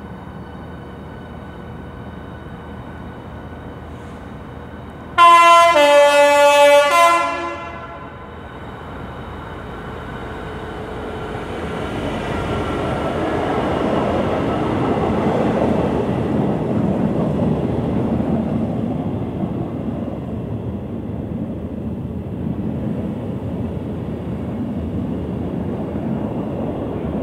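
A Class 66 diesel freight locomotive sounds its two-tone horn about five seconds in, very loud: a high note, then a low note, together about two seconds long. Its engine and the wheels of its empty flat wagons then rumble past, swelling to their loudest near the middle and staying loud as the wagons roll through.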